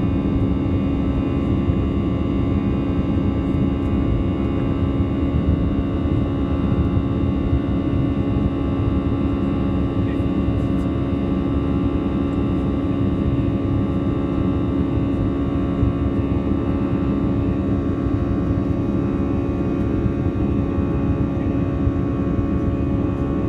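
Airbus A319 jet engines running at climb thrust just after take-off, heard inside the cabin: a steady, loud rushing noise with a steady hum of several tones over it.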